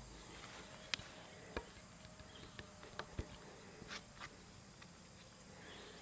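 A few sharp clicks as a wood chisel pares into the fresh-sawn timber of a tenon, over crickets chirring steadily in a thin high tone.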